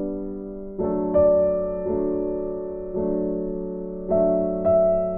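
Soft background piano music: slow chords, each struck and left to fade, with a new chord about every second.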